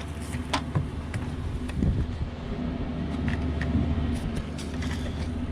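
Scattered small clicks and knocks from handling cable and fittings, over a steady low hum.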